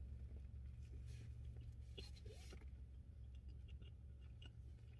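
Faint chewing and mouth noises from a person eating a sandwich, a few soft clicks and rustles over a low steady hum.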